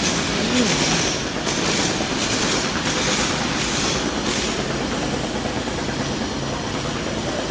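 Steady rumbling vehicle noise with a hiss that swells and fades about twice a second for the first few seconds, then evens out.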